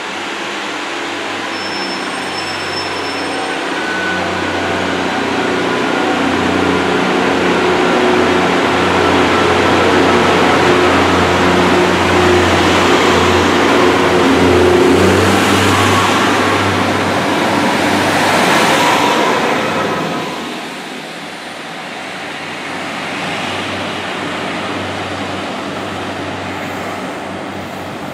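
Class 143 'Pacer' diesel multiple unit running along the platform, its diesel engine growing louder as it passes close by. About two-thirds of the way in the sound drops suddenly to the quieter running of a Class 153 diesel unit approaching along the line.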